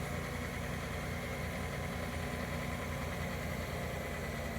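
Engine of the heavy machine lifting the pole, idling steadily with an even low pulsing.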